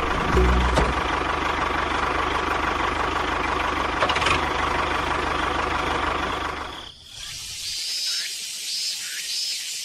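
A small motor running steadily with a low hum, cutting off abruptly about seven seconds in. After that there is a quieter hiss with faint high chirps repeating.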